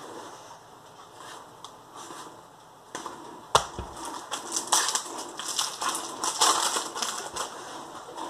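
Magic: The Gathering cards being flicked through by hand among foil booster-pack wrappers: soft rustling at first, then a busy run of crisp card snaps and crinkling from about three seconds in, with one sharp snap at the start of it.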